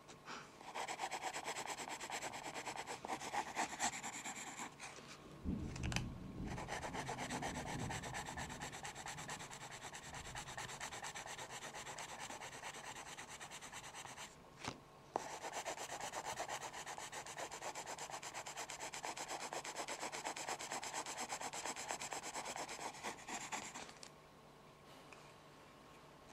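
Pencil rubbing on paper: a steady scratchy shading sound made of quick strokes, with a short break about halfway, stopping shortly before the end. A low rumble from handling comes in for a few seconds about a fifth of the way in.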